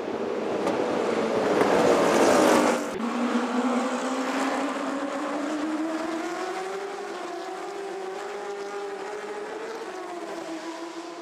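A field of Stock Car Pro Series race cars running in a pack at the race start. There is a loud rush of engines for the first few seconds that breaks off suddenly. Then a steady engine drone follows, slowly rising in pitch as the cars accelerate, and eases off near the end.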